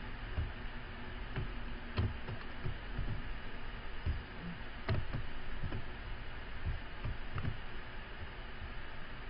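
Scattered clicks and taps of a computer mouse and keyboard, about a dozen spread irregularly, over a steady background hiss and hum.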